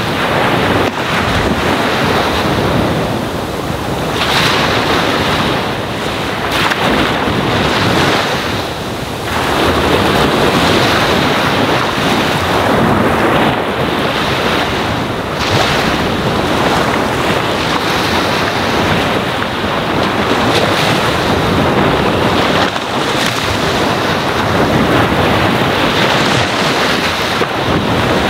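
Ocean waves washing onto a sandy shore: a continuous rush of surf that swells and eases every few seconds.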